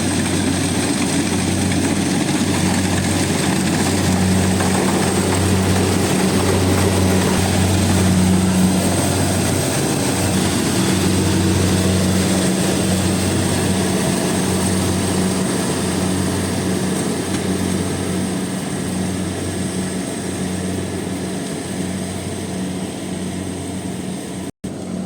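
Rice combine harvester running steadily while harvesting: a continuous engine hum over machinery noise, with a brief break near the end.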